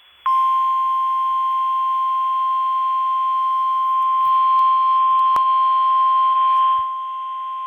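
NOAA Weather Radio warning alarm tone: a single steady high beep of about 1050 Hz over radio hiss, starting a moment in and held unbroken, a little quieter near the end. It signals that a weather warning broadcast follows. A brief click about five seconds in.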